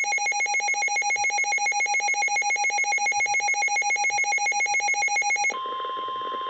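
Emergency alert tones: a rapid, buzzy electronic beeping, about ten pulses a second. About five and a half seconds in, it switches to a steady, slightly quieter single-pitch alarm tone: the National Weather Service warning alarm that signals a warning broadcast is about to follow.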